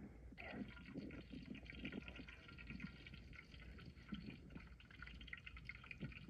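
Butter sizzling and crackling in a hot, emptied cooking pot over a wood fire. The sizzle starts about half a second in and keeps on steadily.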